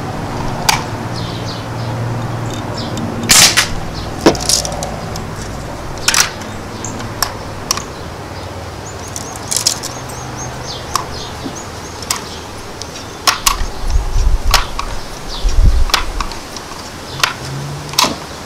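Umarex NXG multi-pump air rifle being fired with BBs and pumped between shots: a string of sharp snaps and clicks, one to two seconds apart.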